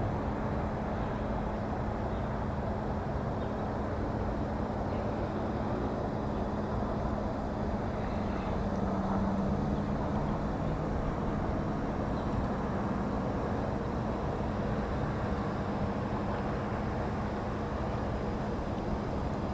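A steady engine drone with a low, even hum that swells slightly about nine seconds in.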